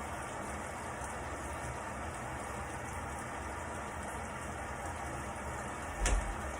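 Panda PAN6320W portable washing machine running its wash cycle: a steady, light motor hum with the noise of water churning in the drum. There is a single short thump near the end.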